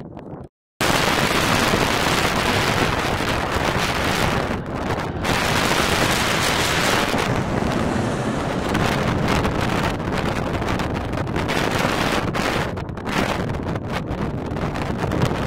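Large jet airliner passing low overhead with its landing gear down, its engines a loud, steady wash of jet noise, with wind buffeting the microphone. The sound starts abruptly just under a second in.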